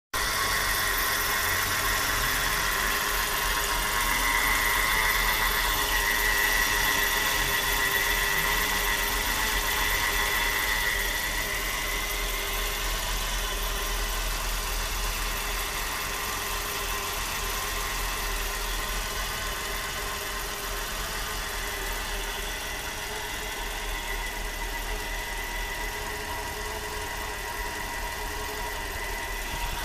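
Car engine idling with a steady high-pitched whine over it, louder for the first ten seconds or so; the owner suspects the whine comes from the alternator belt tensioner pulley.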